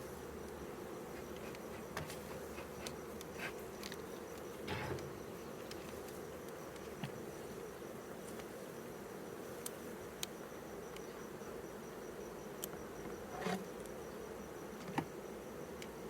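Honeybees at a hive buzzing in a steady, continuous hum, with a few light clicks and knocks scattered through it.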